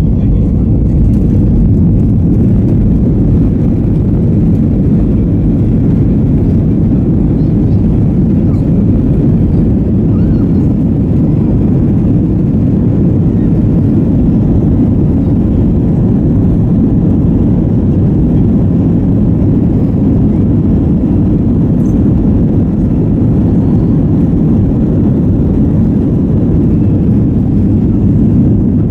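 Cabin noise of an Airbus A321-232 from a rear window seat: a loud, steady roar of the IAE V2500 jet engines and rushing air, low and even throughout.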